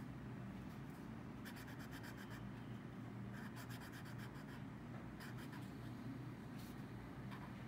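Pen tip scratching on Moleskine sketchbook paper in a few quick runs of short, rapid strokes, as small details are hatched in, over a steady low background hum.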